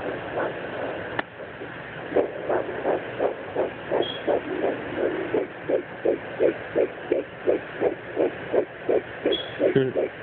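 Handheld fetal Doppler monitor picking up a 10-week fetal heartbeat: rapid, even whooshing pulses, about three a second, over a steady hiss from the device's speaker. There is a single click about a second in, and the beats come through more clearly from about two seconds in.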